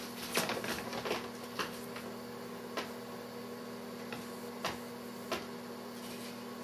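A steady low electrical hum with scattered sharp clicks and taps over it: several in the first second and a half, then single ones about a second apart.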